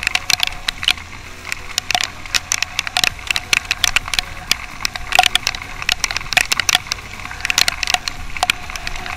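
Wind crackling on the camera's microphone while riding a motorcycle: a dense run of irregular sharp clicks and pops over a low rumble.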